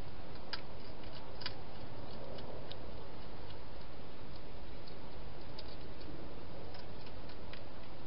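Wild hedgehog eating from a bowl inside a plastic feeding box: irregular small sharp clicks and crunches, the loudest two in the first second and a half, over a steady background hiss.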